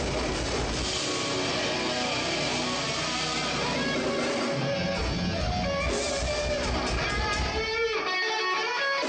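Amplified band playing heavy rock at a sound check, distorted electric guitar up front; about eight seconds in the low end drops out, leaving guitar notes.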